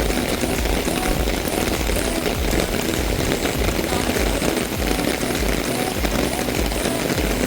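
Heavy rain falling, the drops striking close to the microphone as a dense, steady crackle, with irregular low thumps underneath.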